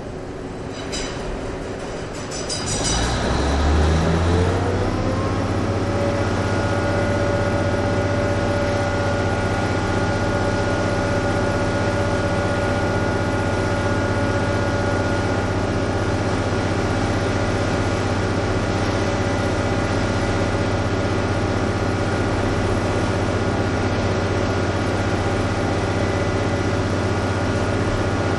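Diesel engine and electric transmission of NS DE II 186, a two-car diesel-electric railcar. After a few sharp clicks, it speeds up about three seconds in, then runs steadily with a deep drone and a steady high whine.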